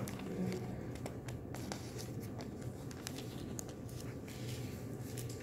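Scattered soft rustles and light clicks of Bible pages being turned to find a passage, over a steady low room hum.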